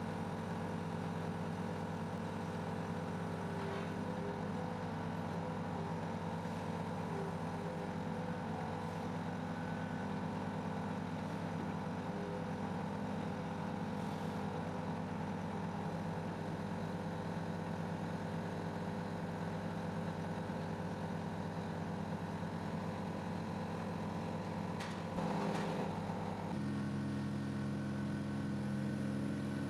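A large engine idling steadily. There is a brief louder patch near the end, and then the pitch of its tone shifts.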